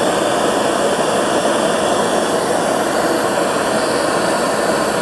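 Handheld gas blowtorch burning with a loud, steady hiss, its flame held on a 3D-printed PCTG part.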